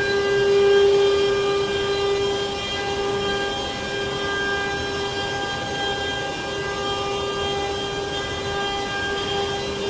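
CNC router spindle running with a steady whine over a broad hiss, briefly louder about a second in.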